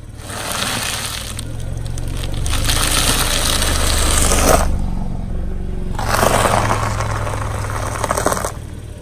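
A car tyre crushing a plastic bag full of small crunchy food pieces: a dense crackling crunch in two long spells, the second starting about six seconds in, over the low steady hum of the car's engine.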